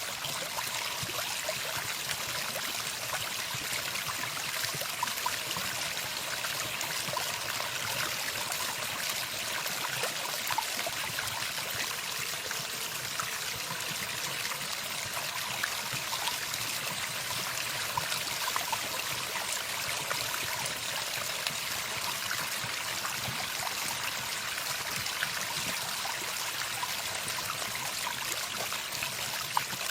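Running water flowing steadily, with small faint splashes now and then.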